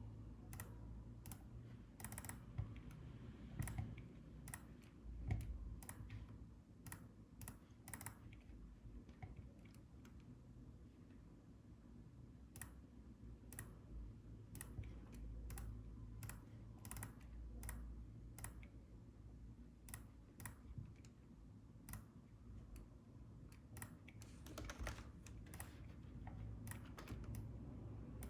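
Faint, irregular clicking of a computer keyboard and mouse, over a low steady hum.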